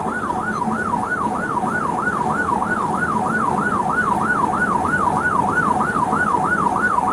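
Police car siren in yelp mode, its pitch rising and falling rapidly about three to four times a second, over steady road noise.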